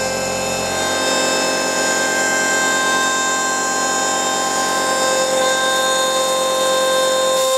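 Model 8 Executive CNC router spindle milling 20 mm aluminium plate with an end mill: a loud, steady whine made of many steady tones. Near the end the low rumble underneath drops away.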